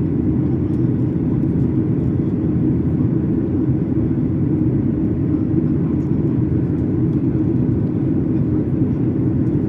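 Steady, loud cabin rumble of a Boeing 737 MAX 8 in flight: its CFM LEAP-1B engines and the airflow heard from inside the passenger cabin, even and unchanging.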